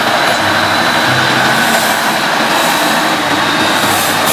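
A vintage heavy-duty tow truck driving slowly past, its engine and running noise making a steady, even sound.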